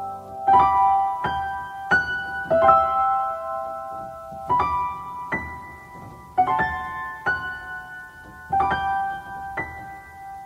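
Solo piano playing a slow, gentle melody, a note or chord struck about once a second and left to ring out.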